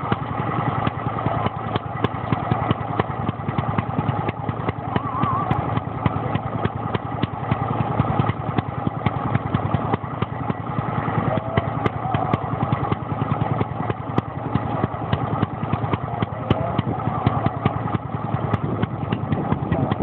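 Scott SE two-stroke stationary engine running steadily, with a rapid, even beat of firings.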